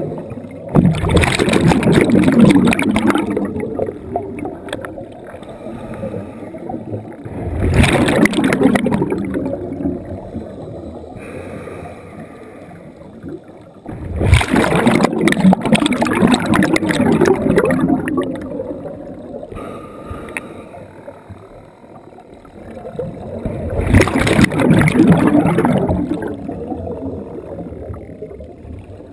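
Scuba diver breathing through a regulator underwater: four loud bubbling bursts of exhaled air, each lasting a few seconds, about six to ten seconds apart.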